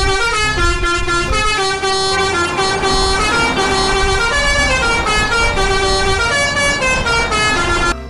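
Multi-tone musical air horn playing a tune in quick stepped notes, over a low engine rumble. It is loud and cuts off suddenly at the end.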